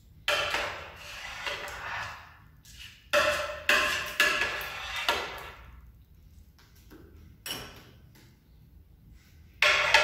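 Metal spoon clinking and scraping against a glass baking dish while scooping out mashed cassava purée: about seven uneven strikes, each with a short glassy ring.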